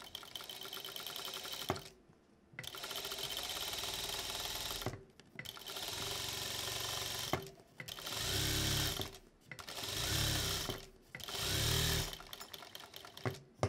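Industrial sewing machine stitching a fabric strip through a loop folder foot in six short runs with brief stops between. The first three runs are steady. The last three each speed up and slow down, with a deeper motor hum.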